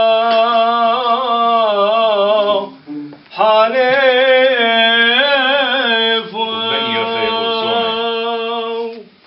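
A man singing solo without accompaniment: a slow, melismatic chant of long held notes that waver in ornaments. He breaks off briefly for breath about three seconds in and stops near the end.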